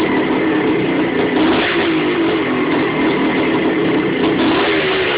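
Freshly rebuilt Suzuki RM500 two-stroke single-cylinder engine running steadily at a fast idle, its pitch wavering a little.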